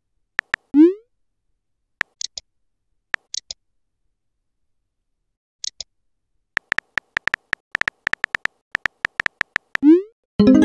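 Texting-app sound effects: a rising pitched blip of a message going through about a second in, a few scattered soft taps, then a fast run of on-screen keyboard clicks in the second half as the next message is typed. Near the end comes another rising blip and a fuller chime.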